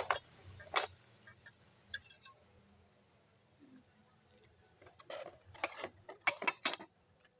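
Shards of a broken glass jar clinking and knocking together as they are handled: a few separate sharp clinks early on and a quick cluster of them near the end.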